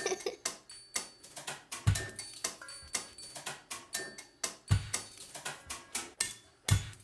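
Percussive music of quick clicks and taps, with a deep drum beat sounding three times.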